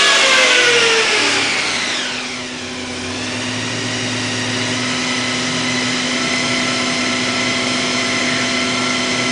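Engine on a run stand coming down off a rev: its pitch falls over the first two to three seconds, then it settles into a steady idle.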